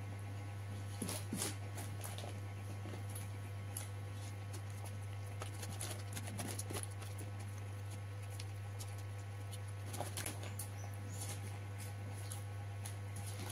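Close-up eating sounds: scattered soft clicks and smacks of chewing and fingers working rice on a paper wrapper, bunched into a few short clusters, over a steady low hum.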